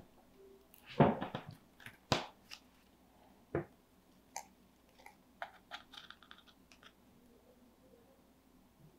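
Cardstock butterfly pieces and wire handled by hand on a tabletop. A cluster of crackly paper clicks comes about a second in, single sharp taps follow about two and three and a half seconds in, then a run of faint ticks.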